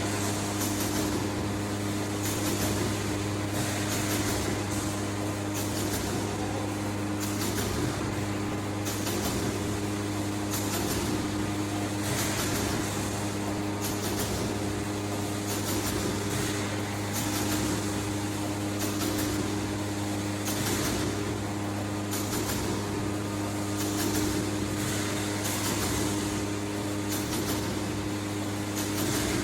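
Automatic filter cage welding machine running: a steady electrical hum, with a short hissing burst about every one and a half seconds as it works through its cycle.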